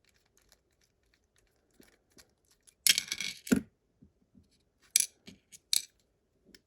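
Small metal lock parts clinking and rattling against each other and a hard surface while a pin-tumbler lock is taken apart: a half-second metallic rattle about three seconds in, then two sharp clicks.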